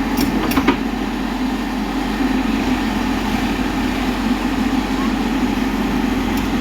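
A heavy machine's engine running steadily at an even pitch, with two sharp clicks in the first second.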